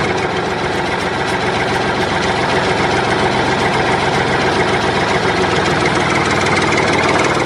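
Tractor engine idling steadily, an even, continuous running sound.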